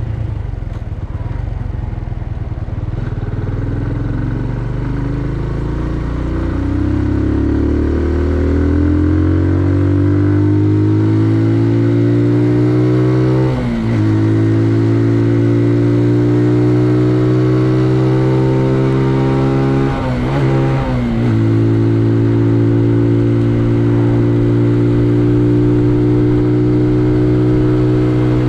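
Benelli Leoncino 125's single-cylinder four-stroke engine accelerating, its pitch climbing, with two quick gear changes heard as short dips about 14 and 20 seconds in, then running steadily at a high engine speed.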